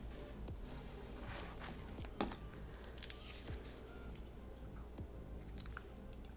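Faint handling noises of makeup tools: scattered soft clicks and rustles as an eyeshadow palette and brush are picked up and worked, the sharpest click about two seconds in, over a low room hum.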